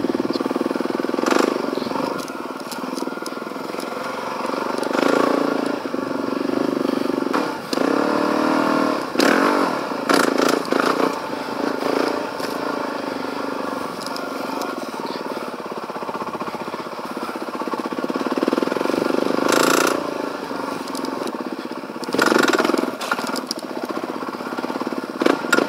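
Suzuki DRZ400E trail bike's single-cylinder four-stroke engine running as it is ridden on single track. Its pitch rises and falls with the throttle, with brief loud bursts of noise now and then. The rider says something is not right with the bike and that something is slipping.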